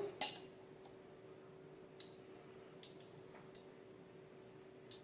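Light clicks and taps of kitchen utensils while spices are added to a cooking pot: one sharp click just after the start, then a few faint scattered ticks, over a faint steady hum.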